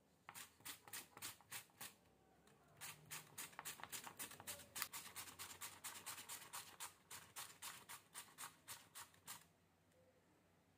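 Raw potato grated by hand on a flat steel-bladed grater: rhythmic scraping strokes, about four a second. A short run of strokes stops about two seconds in, then after a brief pause a long run goes on and stops shortly before the end.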